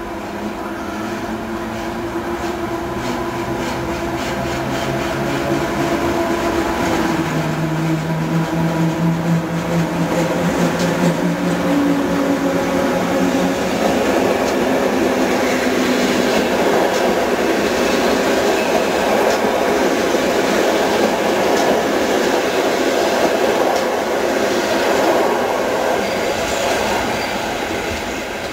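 An EU07-family electric locomotive hauling a passenger train approaches and passes. A steady hum shifts pitch about seven seconds in, then the rolling rumble and clack of the coaches' wheels on the rails builds and holds through the second half.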